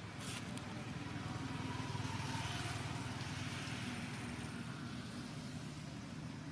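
Steady outdoor background noise, a low rumble with a broad hiss, that swells a little about two seconds in and fades again.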